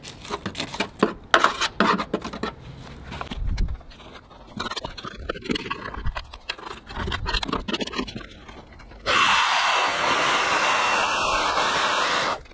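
Dry leaves and debris being scraped and rustled out of a car's blocked water-drain channel by hand, with scattered crackles and scrapes. About nine seconds in, a loud steady rushing hiss starts, then cuts off suddenly about three seconds later.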